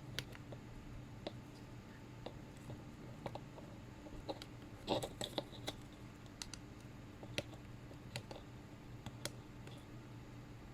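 Faint, irregular small clicks and taps, roughly one a second with a short cluster about five seconds in, as the probes of an SMD tweezer tester are touched to the LEDs on an LED bulb's board to test them. A faint low hum runs underneath.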